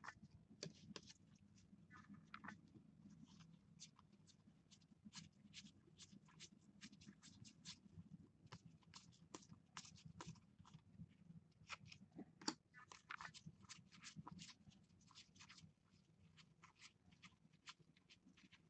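Faint flicking and rustling of a stack of Panini Contenders baseball cards being sorted by hand: quick, irregular card-edge clicks several times a second, with one louder snap about twelve seconds in, over a low steady hum.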